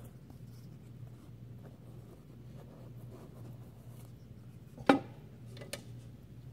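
Paintbrush drawn along painted stair skirt-board trim while cutting in, a faint scratchy brushing, over a steady low hum. A single sharp knock comes about five seconds in.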